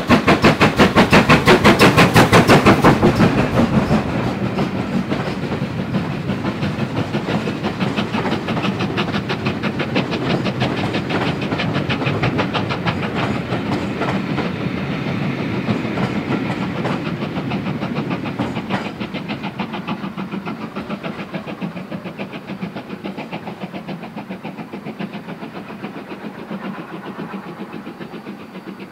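GWR 2-8-0T heavy freight tank locomotive No. 5239 passing close under steam, its exhaust beating in a quick, even rhythm, loudest for the first three seconds. Its carriages then roll by, the wheels clicking over the rail joints, and the sound fades slowly as the train draws away.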